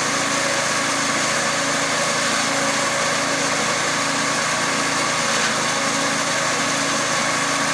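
Engine-driven grass chopper running steadily, a continuous machine drone with a high whirring hum.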